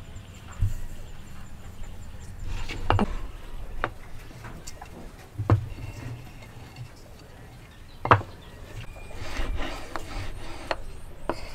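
Wooden blocks handled on a wooden workbench: a few sharp knocks as they are set down, then wood sliding and rubbing against wood near the end as two pieces are pushed together.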